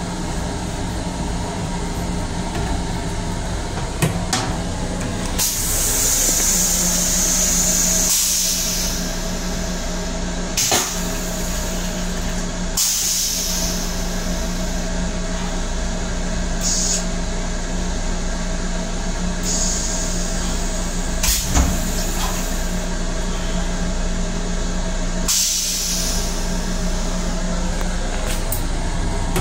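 Flush cycle of an LIRR M7 railcar's stainless-steel toilet. Several bursts of hissing spray, the longest lasting a few seconds, with a few sharp clicks. Under it runs the steady hum of the moving railcar.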